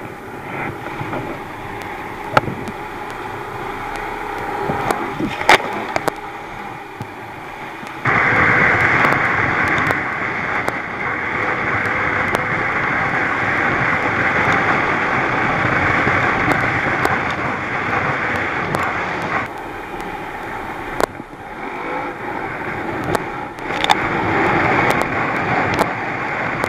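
Thundercat inflatable race boat running fast through swell: its outboard engine under rushing wind and spray on the microphone, with sharp knocks as the hull slams over waves. The rush turns suddenly louder about eight seconds in and dips briefly near the end.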